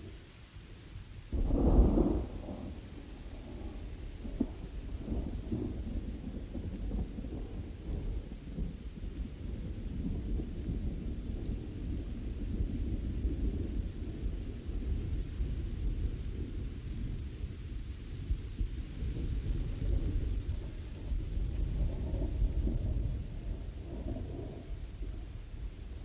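Thunderstorm: a loud clap of thunder breaks about a second and a half in, then rumbles on low and long, swelling again near the end, over steady rain.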